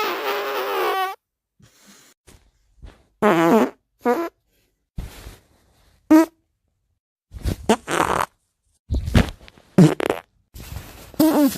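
A string of human farts, about seven or eight separate ones. The first is long and buzzing with a wobbling pitch. Shorter pitched blasts follow, then longer sputtering ones near the end.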